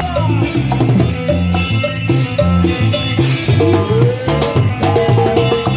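A live band playing an instrumental passage: a drum kit keeps a steady beat with cymbal strokes over a bass line, while a lead melody slides in pitch.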